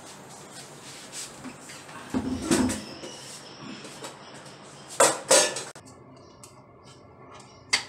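Stainless-steel kitchen utensils being handled on a counter: a few knocks and scrapes about two seconds in, louder metal clanks around five seconds in, and a single click near the end.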